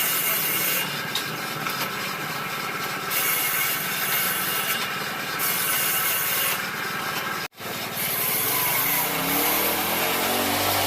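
Power tool working hardwood: a steady hiss of cutting or abrading. After a break about seven seconds in, a motor's pitch rises and falls.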